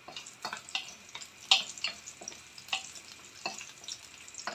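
Garlic cloves and ginger sizzling in hot oil in a non-stick wok while a wooden spatula stirs them, scraping and knocking against the pan about eight times at an uneven pace; the loudest knock comes about a second and a half in.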